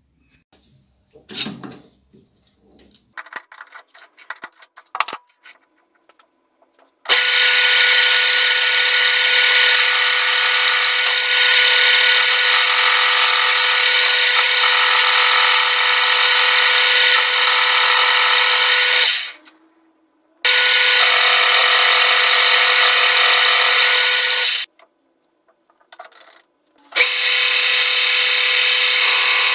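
Metal clicks and knocks as a part is set up, then about seven seconds in a metal lathe starts up and runs steadily with a loud hiss and whine, turning a metal counterweight ring; the sound stops twice and resumes.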